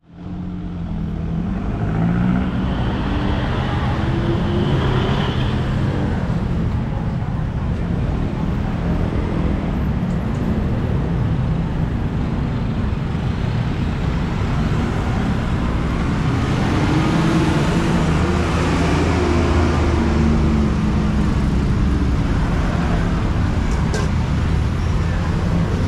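Road traffic: vehicle engines running and passing over a steady low rumble, with engine pitch rising and falling a couple of times.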